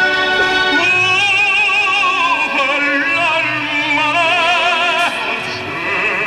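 Music: a high operatic voice singing held notes with wide vibrato over sustained accompaniment.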